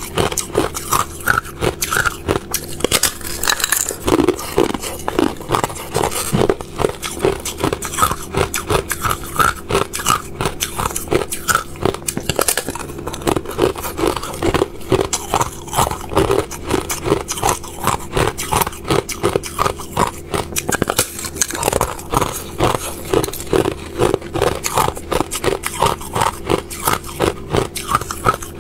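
Thin sheet of clear ice being bitten and crunched in the mouth: a dense, continuous run of sharp cracks and crackles.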